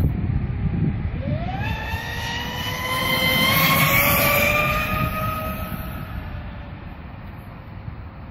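TMM Mystic Style RC speed boat on a full-speed run: its motor's high whine climbs sharply about a second in, holds loudest through the middle, then slowly fades as the boat runs away across the lake. A low wind rumble sits underneath.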